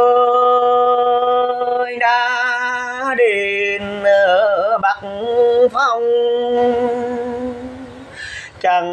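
Mường folk singing: a solo voice holding long, wavering notes that slide between pitches. It fades late on, then comes back strongly just before the end.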